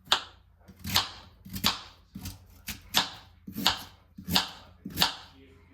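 A kitchen knife chopping food on a cutting board: about eight sharp, evenly spaced strokes, roughly one every two-thirds of a second.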